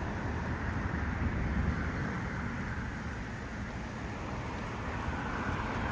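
Street traffic: a steady low rumble of cars passing, growing a little louder near the end.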